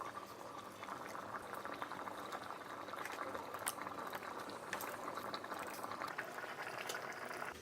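Liquid boiling hard in an electric kettle: a dense bubbling with many small pops, which stops abruptly near the end.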